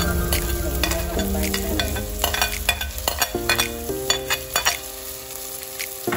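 A metal spoon scraping and clicking against a ceramic plate as chopped onion, garlic and tomato are pushed off it into a pot of hot oil, where they sizzle. Soft background music with held notes plays under it.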